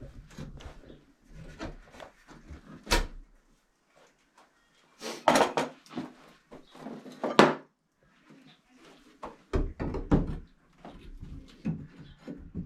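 Sledgehammer blows knocking out shelves: heavy bangs at irregular intervals, a quick cluster of several around the middle with the loudest just after it, and a couple more near the end.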